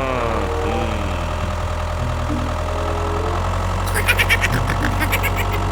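A tractor engine idling steadily, with a few short voice-like glides near the start and a quick rattle of clicks about four seconds in.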